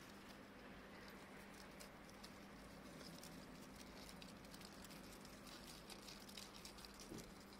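Near silence, with faint scattered high ticks throughout and a low steady hum.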